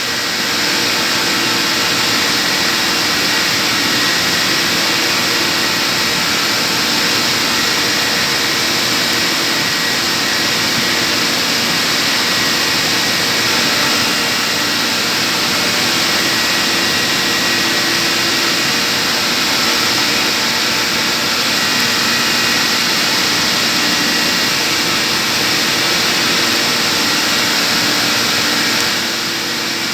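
Steady machinery noise of a chiller plant room: a loud, even hiss with faint steady hums under it, dipping briefly near the end.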